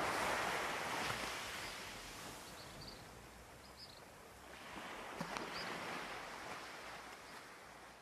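Ocean waves washing onto a shore. One swell comes at the start and another about halfway through; each rises and then draws back.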